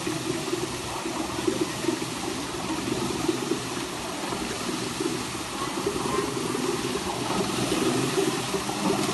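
Running water from a rocky stream: a steady rushing noise.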